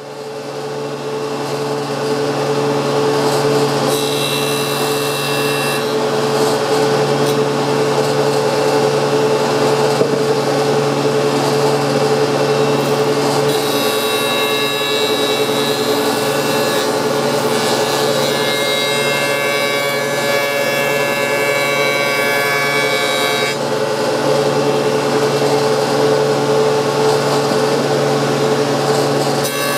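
Homemade jointer spinning up and running with a steady hum and tone. A board is fed across the cutterhead in passes, the knives cutting with a rougher, brighter sound, briefly early on, through a long stretch in the middle, and again starting at the very end.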